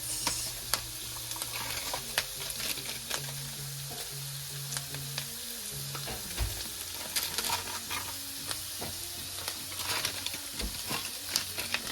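Chicken hearts and onions sizzling in a frying pan, with a utensil clicking and scraping against the pan as they are stirred.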